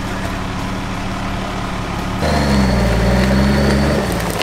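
Off-road 4x4 engine idling steadily, then, about two seconds in, running louder under load as the vehicle pulls a fallen tree off the track with a tow strap, its pitch wavering, with a faint high whine over it; it eases off near the end.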